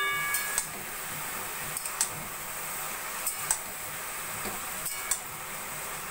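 Metal spatula scraping and knocking against a metal kadai as water lily stems are stir-fried, with sharp irregular clinks every second or so. A faint steady sizzle of frying runs underneath.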